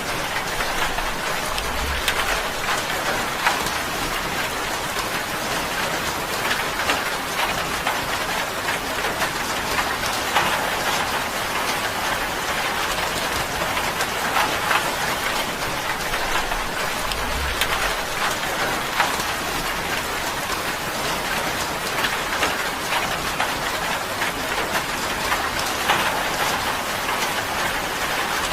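Steady rain drumming on a tin roof: a dense, even patter of many sharp drop ticks over a continuous hiss.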